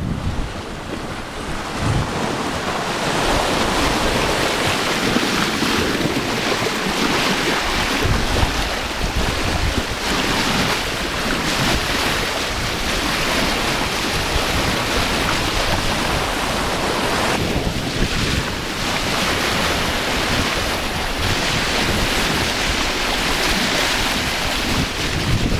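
Water rushing and splashing along the hull of a Najad 390 sailing yacht as its bow wave foams past under sail, with wind buffeting the microphone throughout. A steady wash of noise.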